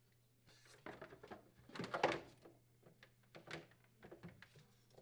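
Faint, irregular clicks and rustles of gloved hands handling the wiring and aluminum evaporator coil inside a freezer compartment, from pulling out the old defrost heater. The loudest handling noise comes about two seconds in.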